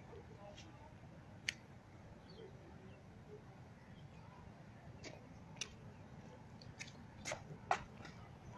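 Quiet outdoor background noise with a handful of short, sharp clicks scattered through it, the loudest about a second and a half in and another pair near the end.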